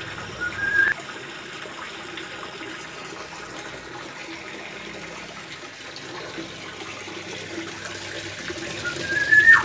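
A steady rushing noise, like running water, with a short rising whistle about half a second in and another near the end.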